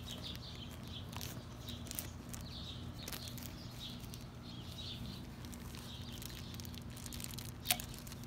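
Faint bird chirps recurring against a steady low hum, with a few light handling clicks and a sharper click near the end.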